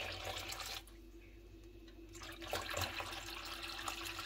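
Water poured from a plastic measuring jug into a stainless steel pot around two glass jars, splashing as it fills the pot to the jars' shoulders for a water bath. The pouring sound drops away for about a second, then resumes.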